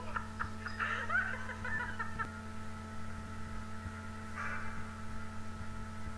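A person snickering with laughter in the first two seconds, then a hooded crow gives one harsh caw about four and a half seconds in.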